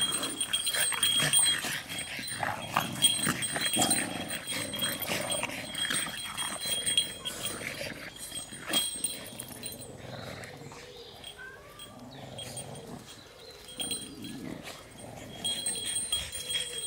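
Small dogs play-wrestling, with dog vocal sounds and scuffles. It is busiest with short sharp sounds in the first half, quieter around the middle and picks up again near the end.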